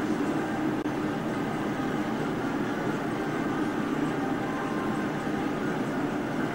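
Steady low hum and hiss of background noise, unchanging throughout, with no voices.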